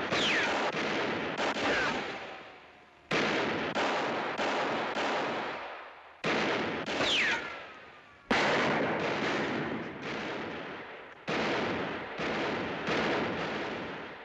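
Western-film gunfight sound effects: revolver shots every few seconds, each fading out in a long echo. Several of them are followed by a ricochet whine that falls in pitch.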